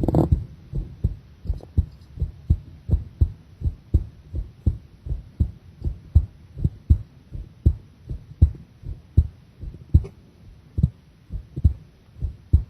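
A woman's heartbeat heard close up at the chest: a regular run of soft low lub-dub thumps.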